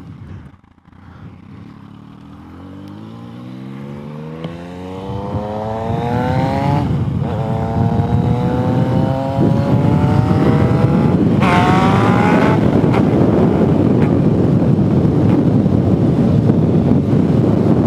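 Motorcycle pulling away and accelerating, its engine pitch climbing, dropping at an upshift about seven seconds in, then climbing again. From about ten seconds on, wind rushing over the rider's microphone grows loud and covers the engine as speed builds.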